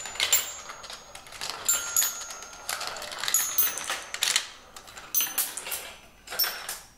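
Marbles rolling and clattering through a Gravitrax marble run, plastic track pieces and metal rails: a dense run of irregular sharp clicks and knocks, some followed by short high metallic rings, with one clearer ringing tone about two seconds in.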